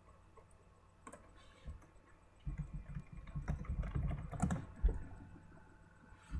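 Typing on a computer keyboard: a few scattered keystrokes, then a quick run of clicks for about two and a half seconds in the middle, ending with one sharper click.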